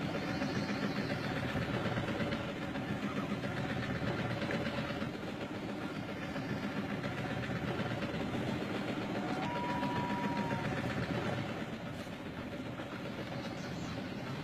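An engine running steadily, with a brief high tone about ten seconds in.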